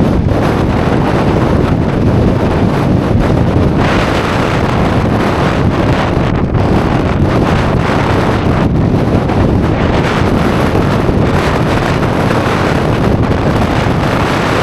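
Strong mountain wind buffeting the microphone: a loud, steady rush with a heavy low rumble, rising and falling in gusts.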